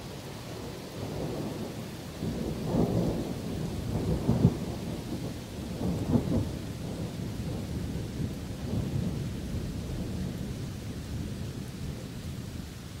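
Rolling thunder rumbling, swelling about two seconds in, loudest around four seconds, and fading out towards the end, over steady rain.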